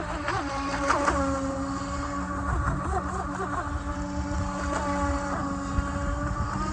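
Radio-controlled scale truck driving: a steady motor and gear whine that swoops up and down in pitch several times as the throttle is worked, most in the first second or so.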